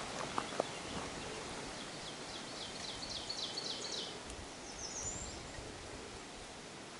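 A songbird sings a run of quick repeated notes for about two seconds, then a brief higher phrase, over a steady rustle of leaves in the forest. A few faint clicks near the start.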